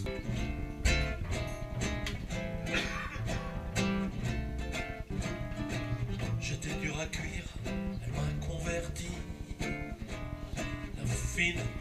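Live duo music: a strummed guitar playing steadily over a bass line, with no sung words.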